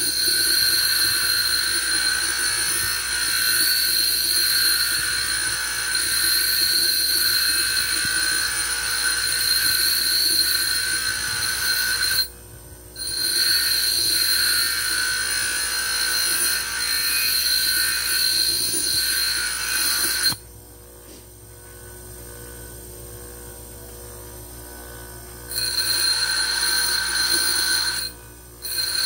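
Bench grinder wheel grinding a small steel gaff-blade blank, a steady high-pitched screech of steel against the abrasive wheel. The screech breaks off three times as the blank is lifted off, once for about five seconds, leaving only the grinder's low running hum.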